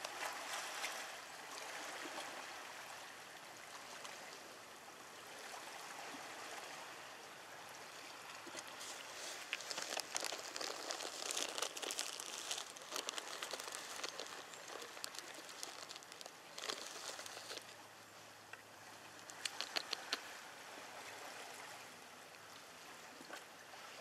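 Steady rush of moving water, with bursts of fine crackling about ten seconds in and again a few seconds before the end.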